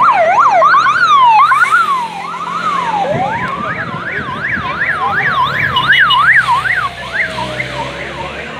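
Police escort sirens leading a bicycle race: a fast rising-and-falling yelp runs throughout, joined about three seconds in by a slow wail that rises and then sinks gradually.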